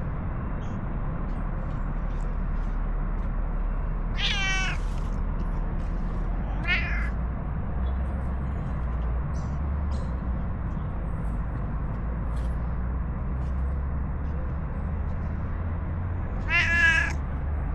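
Stray cat meowing three times, short calls a few seconds apart with the last one the loudest, over a steady low background rumble.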